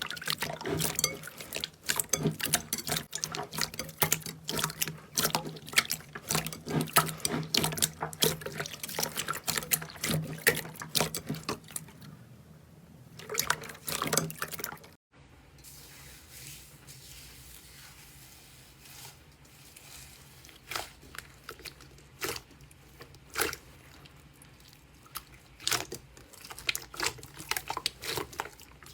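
Slime being squeezed and pressed by hand, making wet squelches and sticky popping clicks. These come thick and fast for the first half, then stop suddenly and give way to sparser single pops.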